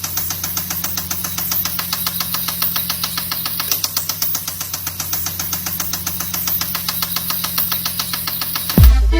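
Car engine running with a fast, steady, even knocking that continues throughout. Heavy bass-driven electronic music cuts in near the end.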